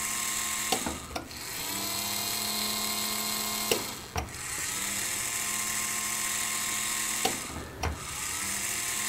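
Small DC gear motor whining steadily as it turns an air variable capacitor on a magnetic loop antenna tuner. Three times it stops with a click from the control buttons and starts again with a brief rising whine, reversing the capacitor's direction.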